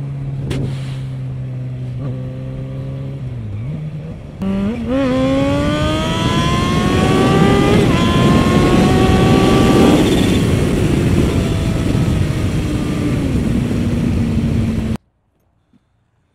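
Kawasaki H2 SX SE motorcycle's supercharged inline-four running at a steady cruise with wind noise. About four seconds in it turns louder and pulls hard, its pitch climbing through a couple of gear changes, then holds steady and eases off. The sound cuts off suddenly near the end.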